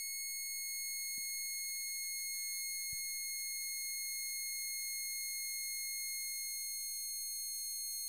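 Electronic toy sounding one steady, high-pitched electronic tone with overtones, held at an even level without a break.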